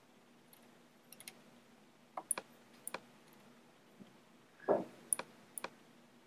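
Computer mouse buttons clicking several times, often in quick pairs, with a duller, louder thump about three quarters of the way through over a faint steady hum.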